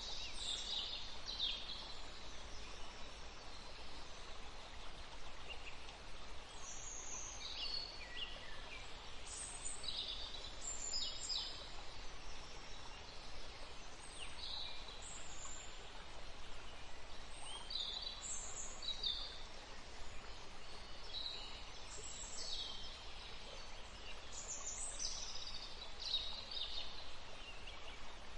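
Songbirds chirping and singing, several short high calls and trills every second or two over a steady background hiss.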